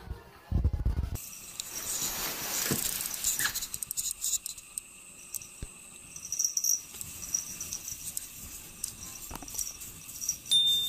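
A cat's short hacking cough, then soft scraping and rustling as a cat paws and digs at a wall of packed snow.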